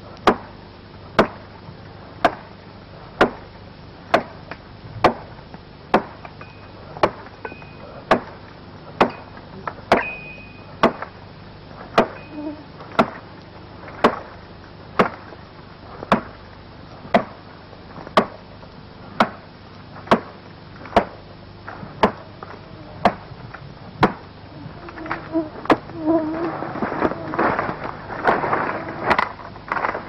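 Axe chopping wood in a steady rhythm of about one stroke a second. Near the end a denser crackle and rustle of branches joins in.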